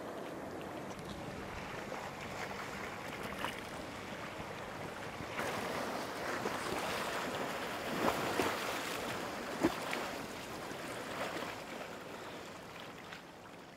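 Small waves splashing and washing over a rocky shore. The splashing grows louder about five seconds in, with a few sharper splashes, then eases off near the end.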